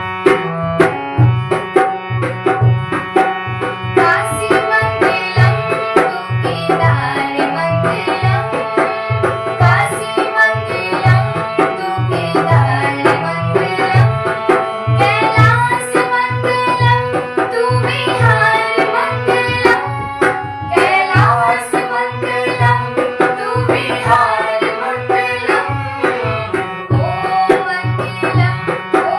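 Devotional Shiv bhajan music: a drum keeps a steady, repeating rhythm under sustained tones, with a wavering melody line over them.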